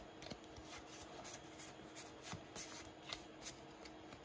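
Pokémon trading cards sliding against one another as a freshly opened booster stack is handled and flipped through: faint soft swishes and light clicks.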